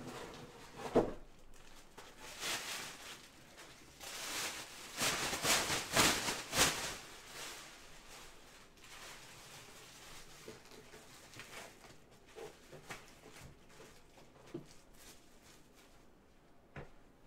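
Plastic rustling with scattered clicks and knocks from handling, loudest about four to seven seconds in.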